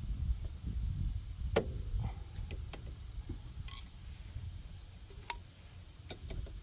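Scattered light clicks and knocks of hand tools and parts being handled, the sharpest about a second and a half in, over a low rumble.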